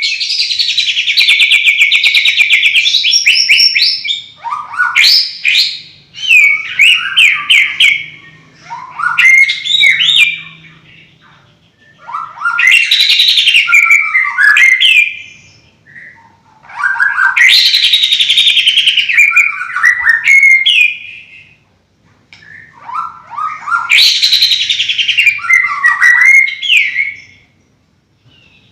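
A songbird singing a loud, varied song of rapid trills and whistles, delivered in bursts of a few seconds each separated by short pauses.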